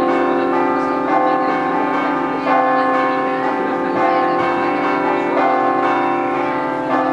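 Church bells played by hand in the Friulian scampanottata style (the 'grathade'): a continuous rhythmic peal of overlapping strokes, the bells' tones ringing on beneath each new strike.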